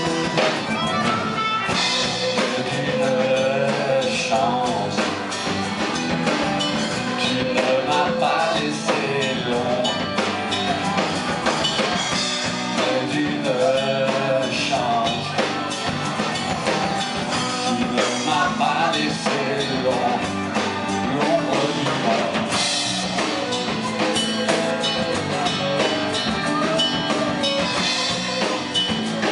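Live rock band playing an instrumental passage: electric and acoustic guitars with a melodic lead line over a drum kit.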